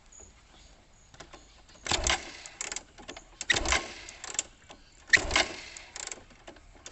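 Hero XPulse 200's single-cylinder engine being kick-started: a short burst with each kick, about a second and a half apart, and the engine does not settle into a steady idle.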